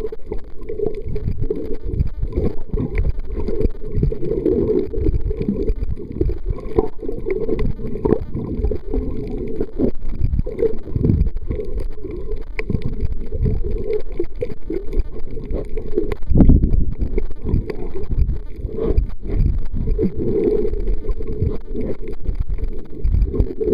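Muffled underwater rumble and water movement picked up by a submerged action camera, with irregular dull knocks and bumps as the camera is moved through the water.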